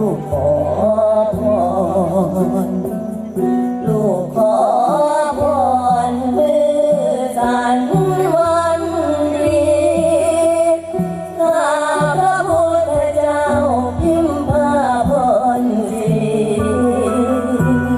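Music with a singing voice: a wavering, ornamented melody held over a sustained low drone and regular bass notes.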